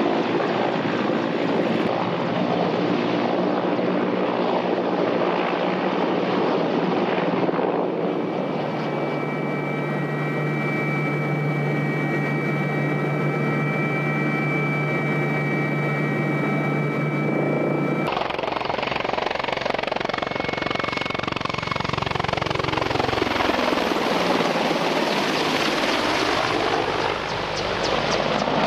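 Mil Mi-24 Hind helicopter in flight: rotor and twin turboshaft engine noise. The sound changes abruptly about 8 seconds in to a steady turbine whine, and again at about 18 seconds to a close pass, with a sweep in pitch as the helicopter goes by.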